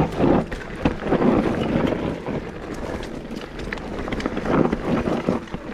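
Mountain bike riding down a rough, rocky dirt trail: tyres crunching over dirt and rock, with clattering knocks and rattles from the bike and wind buffeting the microphone.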